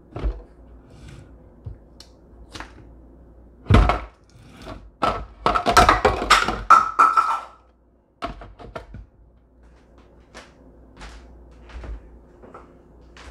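Plastic parts of a Presto PopLite hot air popcorn popper being handled: the clear hood is lifted off and set back on its black chute. A loud thunk comes about four seconds in, a burst of plastic clattering and scraping follows around six seconds, and then light scattered knocks.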